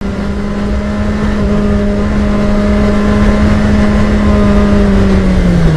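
Motorcycle engine running steadily at cruising speed, heard from on board the bike, with wind rumbling on the microphone. The engine note drops slightly in pitch near the end.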